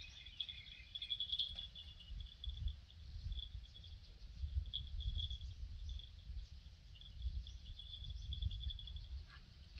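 Outdoor ambience of insects chirping in a high, pulsing trill that fades in and out, over a low rumble.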